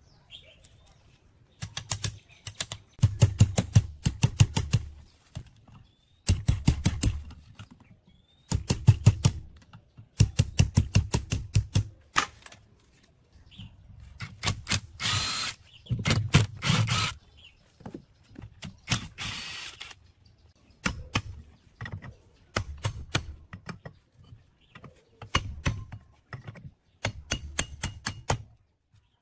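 Cordless impact driver hammering in repeated short bursts of rapid clicks, a second or two each, as it works the end-cap bolts loose on an old electric water-pump motor.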